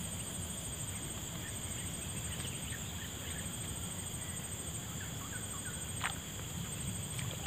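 Steady forest ambience dominated by a continuous insect chorus, with a faint rapid pulsing trill high up and a low background rush.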